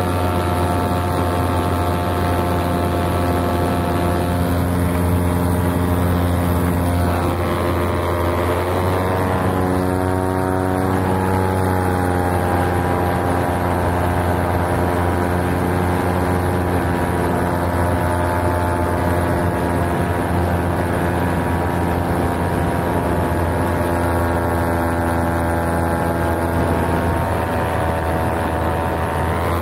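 Paramotor engine and propeller running steadily in flight, a loud even drone whose pitch wavers for a few seconds about ten seconds in and again near the end.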